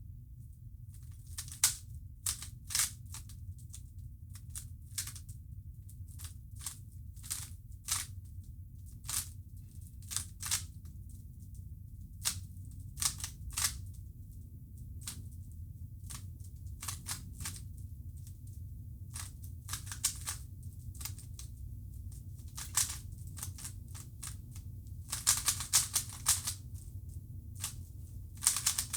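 Plastic Rubik's Cube faces being turned by hand during a solve: irregular sharp clicks, single and in quick flurries, with a faster run of turns near the end. A steady low hum runs underneath.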